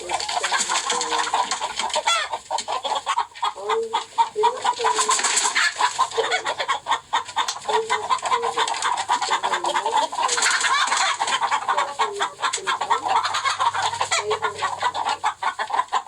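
Chickens clucking continuously, many short calls overlapping without a pause.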